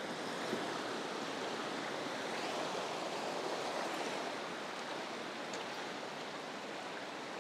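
Small mountain creek running over rocks: a steady wash of flowing water.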